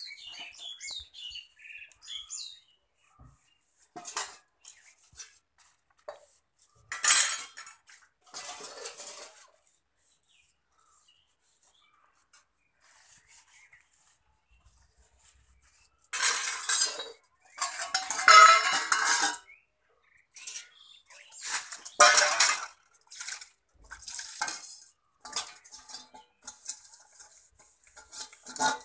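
Stainless steel bowls, plates and ladles clinking, clattering and scraping as they are hand-washed and set down on a concrete slab. The sound comes in irregular bursts with a long quiet stretch midway.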